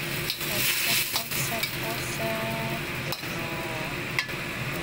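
A slotted metal spatula stirring and scraping sliced luffa in a steel wok, with sharp clicks of metal on metal over the sizzle of the simmering liquid. The sizzle is loudest in the first second or so.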